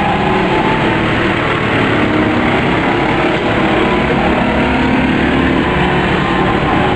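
Go-kart engines running at speed on the track, a steady drone with faint shifts in pitch as karts pass.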